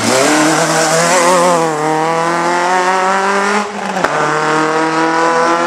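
Rally car engine at high revs, the note wavering at first, then climbing steadily as it pulls through the gear. It breaks off briefly just before the four-second mark, then pulls again with the pitch slowly rising.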